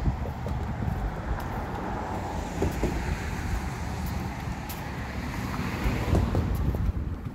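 Wind buffeting the microphone over a steady rumble of passing road traffic.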